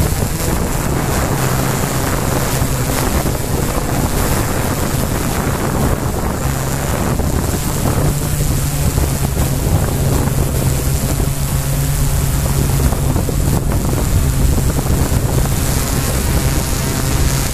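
Quadcopter drone's motors and propellers running with a steady low hum, heard through the drone's own camera microphone along with wind noise, as it descends to land.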